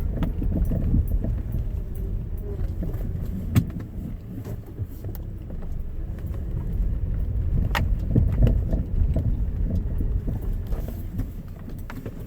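A car with a low rumble, punctuated by irregular knocks and clicks: the knocking noise the owner is recording.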